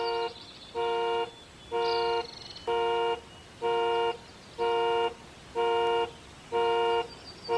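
Car alarm sounding its horn in steady, evenly spaced toots, about one a second, each about half a second long.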